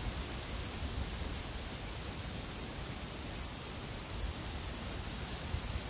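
Open fire of burning clothing and wood: a steady rushing hiss of flames with a few faint crackles, over an uneven low rumble like wind on the microphone.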